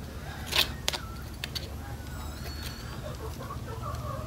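Metal spoon clicking and scraping against a blue crab's shell while picking out the meat, with two sharp clicks in the first second and lighter ticks after. Faint wavering calls sound in the background during the second half.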